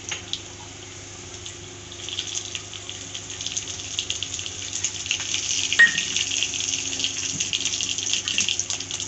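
Panch phoron seeds sizzling and crackling in hot mustard oil in a kadai, the sizzle starting about two seconds in and running on as a dense crackle. One brief sharp ping about six seconds in.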